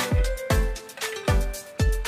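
Background electronic music with a steady kick drum about twice a second, ticking hi-hats and a short repeating synth melody.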